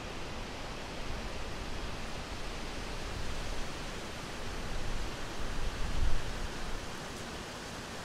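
Wind blowing as a steady rush, swelling into a stronger, lower gust about six seconds in.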